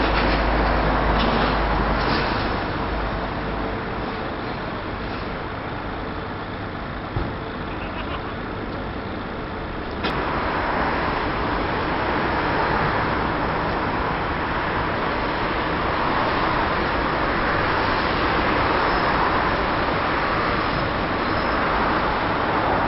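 Steady vehicle and traffic noise, with a deep engine rumble in the first two seconds. About ten seconds in, the sound changes abruptly to a louder, brighter rush.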